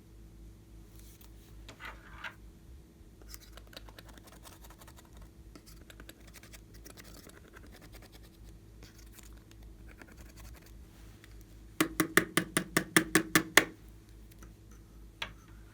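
Slime being worked by hand, with faint scratchy rustling, then a rapid run of about a dozen sharp pops and clicks near the end.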